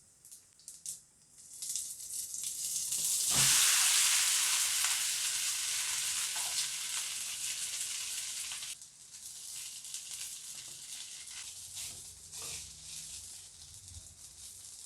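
Hot oil sizzling in a pan as food fries. The sizzle swells about two seconds in, with a soft thump at its loudest, then drops to a quieter, steady sizzle a little past halfway.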